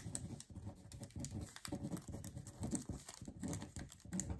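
Faint rustling and crinkling of a diamond painting kit's plastic packaging being handled, with irregular small taps and clicks.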